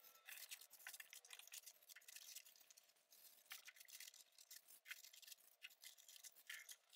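Faint scratching and rustling of a foam packing insert as statue pieces are worked out of their cut-outs by hand, a scatter of short scratchy ticks.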